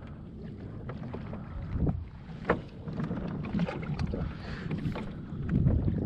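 Wind buffeting the microphone and small waves slapping against a kayak hull, with a few light knocks and clicks, the sharpest about two and a half seconds in.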